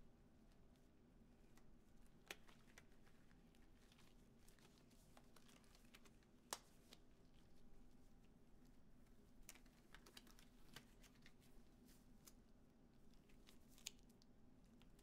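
Near silence with faint rustling and a few small sharp clicks as disposable gloves are pulled onto the hands and snugged on, over a faint steady room hum.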